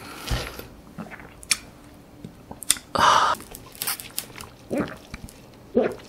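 A person drinking iced watermelon juice through a straw close to the microphone: short sips, one loud slurp about three seconds in, and gulps of swallowing near the end.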